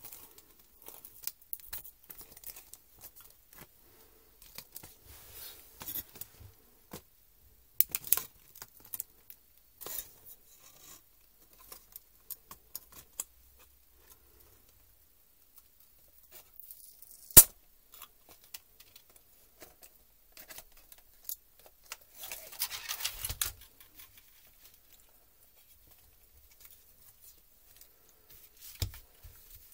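Plastic clicks and handling noise of a laptop chiclet keyboard being pushed out of its plastic top case: scattered small clicks, one sharp snap a little past halfway, and a rasping stretch of over a second about three-quarters of the way through.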